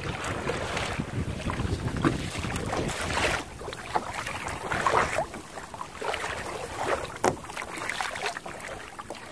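Water splashing and rushing against the plastic hull of a Hobie Outback kayak as it moves along under sail, in uneven surges, with wind buffeting the microphone.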